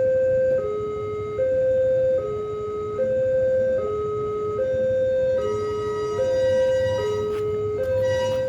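Railway level-crossing warning alarm sounding a two-tone electronic alert: a higher and a lower tone alternate, each held just under a second, the signal that a train is approaching and the barriers are down. About two-thirds of the way through, an extra higher tone joins, and a few sharp clicks come near the end.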